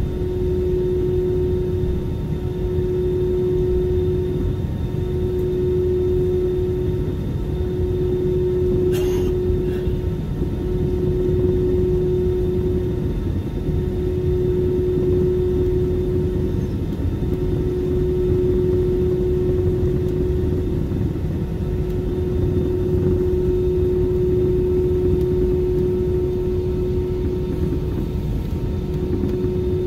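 Cabin noise of a jet airliner moving along the ground: a steady low rumble with a steady hum over it, and a brief click about nine seconds in.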